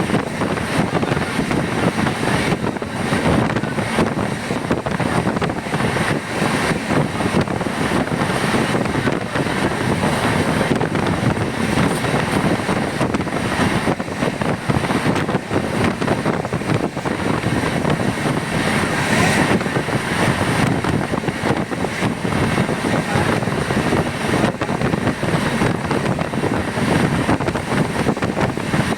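Moving train's steady running noise, wheels on rails, even and unbroken.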